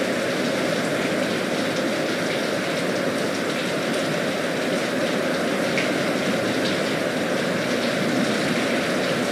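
Steady rain from a thunderstorm, a dense, even hiss with no break.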